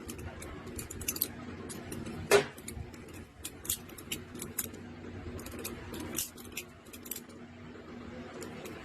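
Old balisong (butterfly knife) being flipped in the hand, its metal handles clicking and clacking against each other in quick irregular runs, with one sharper clack about two and a half seconds in.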